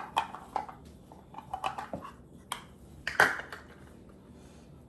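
Kitchen utensils and a mixing bowl clattering as they are handled: a scatter of short knocks and clinks, the loudest a little over three seconds in.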